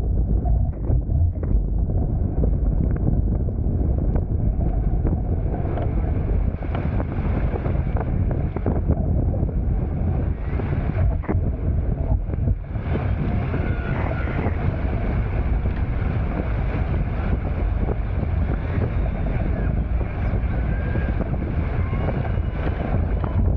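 Wind buffeting the camera microphone in a steady low rumble, with water rushing and splashing along the hulls of a Hobie Tiger F18 catamaran under sail.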